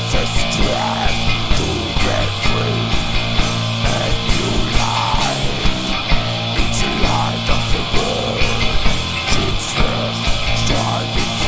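Heavy metal band recording: distorted electric guitars over a steady drum beat, with a melodic line rising and falling above them.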